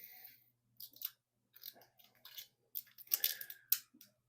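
Hands handling and pressing down freshly cut tubeless rim tape on a bicycle rim: faint, irregular crinkles and ticks.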